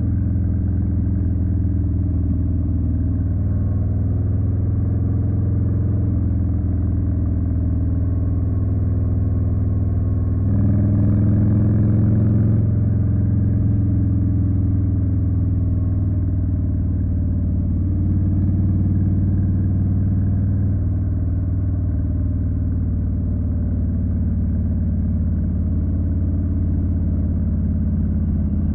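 Harley-Davidson Street Bob's V-twin engine running under way, with a steady exhaust note. The revs and loudness rise briefly about ten seconds in, then settle.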